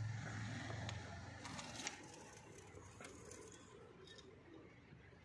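Handle latch on a diesel generator's sheet-metal enclosure door clicking as it is worked open, a cluster of sharp clicks just under two seconds in, with a few fainter clicks later as the door panel is handled. A low hum fades out in the first second and a half.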